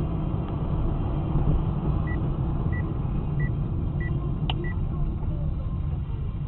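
Steady low rumble of a moving car heard from inside the cabin, with five short high beeps evenly spaced about two-thirds of a second apart and one sharp click about four and a half seconds in.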